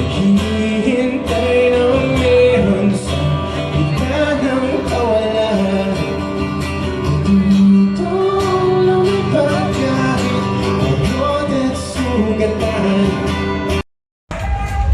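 Music with singing and guitar in a country style. It cuts out abruptly for a moment near the end, and different music follows.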